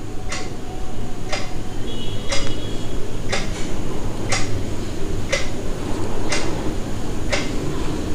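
Clock ticking, one sharp tick each second, over a steady low hum.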